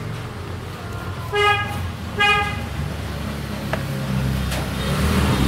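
A vehicle horn honks twice, two short beeps just under a second apart, over a low steady rumble.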